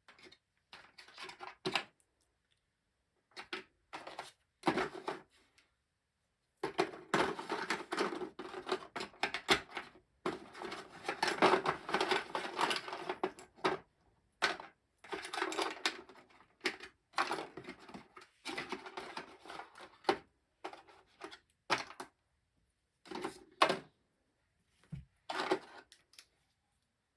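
Stacks of board-game cards being handled and sorted by hand: irregular bursts of rustling and clicking, thickest in a long run about a third of the way in, with shorter handling sounds after.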